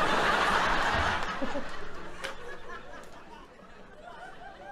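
Audience laughing at a joke, loud at the start and dying away over about three seconds.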